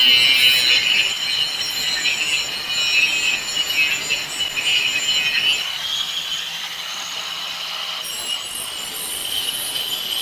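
Angle grinder working cast iron: a continuous high-pitched grinding screech.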